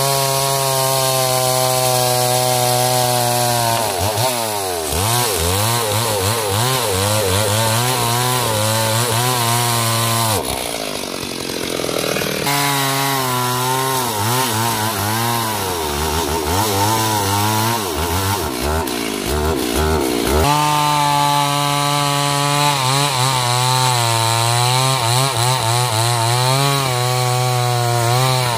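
Stihl MS 382 two-stroke chainsaw running at high revs while cutting wood. About ten seconds in its note breaks and drops for a couple of seconds, then wavers up and down for several seconds before it runs steady and high again.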